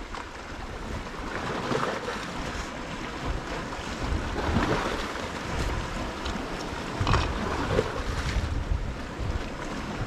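Wind gusting on the microphone over the wash of sea waves.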